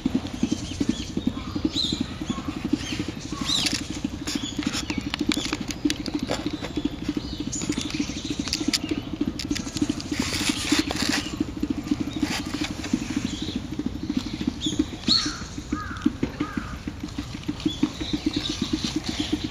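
Irregular sharp strikes of a tsuzumi hand drum and short, shrill calls of birds that the uploader takes for brown-eared bulbuls, over the steady low rush of a stream.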